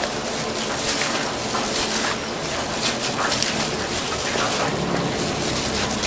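Food frying in hot oil, a steady sizzle with frequent metal clicks and clatter of cooking utensils.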